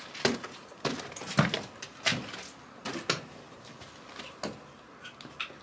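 Footsteps of shoes climbing stone steps and crossing loose stone rubble: irregular steps and scuffs, one or two a second, growing sparser near the end.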